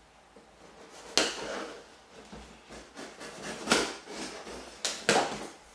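Folding knife slitting the tape seals along the edge of a large cardboard box: a sharp scratchy cut about a second in, then several more quick cuts and rips in the last two seconds.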